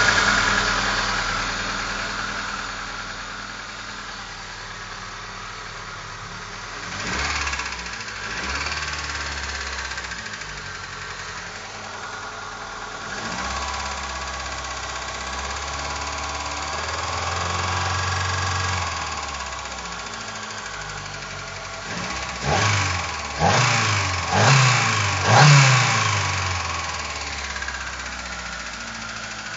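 Opel C20XE 2.0-litre 16-valve four-cylinder engine running with a knock. It idles, is revved briefly a couple of times, is held at higher revs for several seconds in the middle, then gets four quick throttle blips near the end.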